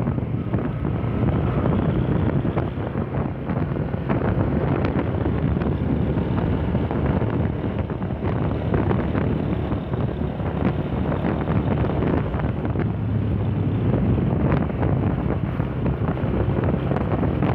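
Heavy wind buffeting on the microphone over a Yamaha Fazer 150's single-cylinder engine running steadily.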